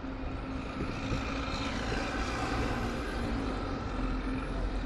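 A passing motor vehicle heard over street traffic. Its noise, with a few steady tones in it, swells towards the middle and eases off near the end.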